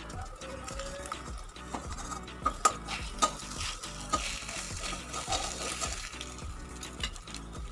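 Egg-dipped bread slices (dim toast) sizzling steadily in oil in a metal kadai. A metal spatula scrapes and clinks against the pan several times, the sharpest clinks coming a little before the middle.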